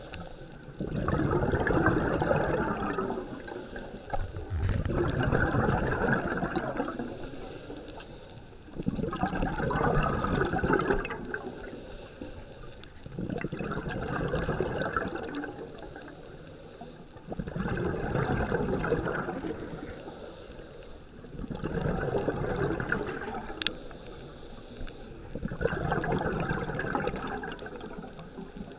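Scuba diver breathing through a regulator underwater: the exhaled bubbles rush past seven times, about every four seconds, each lasting two to three seconds, with quieter gaps for each in-breath.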